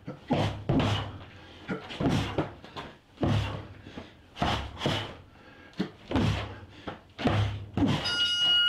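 Repeated heavy thuds of an improvised slingshot, a headscarf weighted with socks, swung hard into a training dummy, about one or two strikes a second. A long electronic beep sounds near the end.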